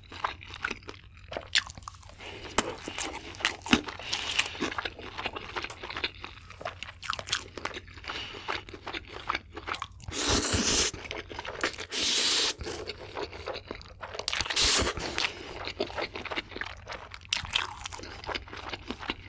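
Close-miked eating: wet chewing with many sharp crunchy clicks, broken by loud noodle slurps about ten, twelve and fifteen seconds in.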